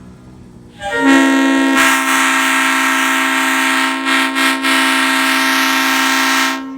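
Five-chime locomotive air horn blowing one long, steady chord for about six seconds, then cutting off.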